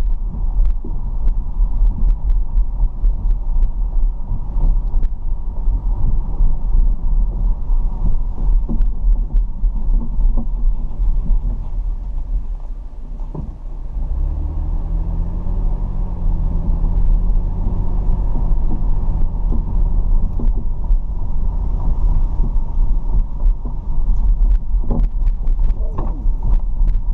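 Low, steady rumble of a car driving, dipping briefly about halfway through before an engine note rises and holds for several seconds.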